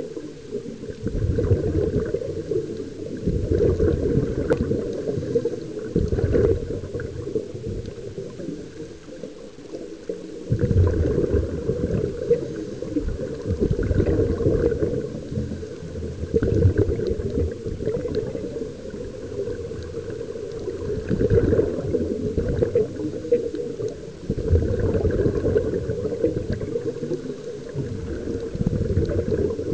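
Scuba regulator exhaust heard underwater: exhaled air bubbling and gurgling out in surges every few seconds with each breath, muffled and deep.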